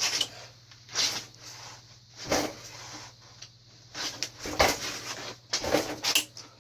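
Mountain bike front suspension fork being compressed by hand, about five or six strokes, each a short clunk. The owner takes the fork's sound for a sign of water inside it.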